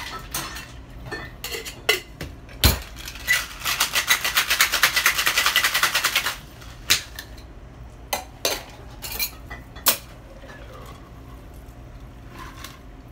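Ice rattling inside a metal cocktail shaker, shaken hard in a rapid, even rhythm for about three seconds after a few clinks and one sharp knock. A few separate metal knocks follow, then the drink pours into a glass of ice near the end.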